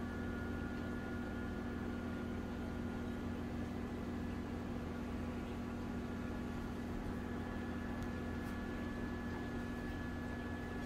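Aquarium equipment running: a steady electrical hum with several fixed tones over a constant hiss, from the tank's filter and air pump.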